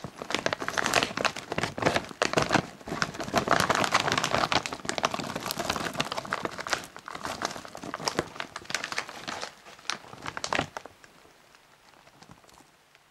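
A thick foil snack bag crinkling and rustling as puffed corn snack balls are tipped out of it into a hand; the crinkling stops near the end.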